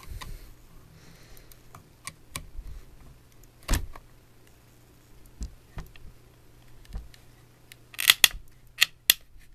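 A flathead screwdriver prying at the seam of a plastic telephone handset: scattered clicks and scrapes, a single knock about four seconds in, then a quick run of sharp plastic cracks and snaps near the end as the shell comes apart.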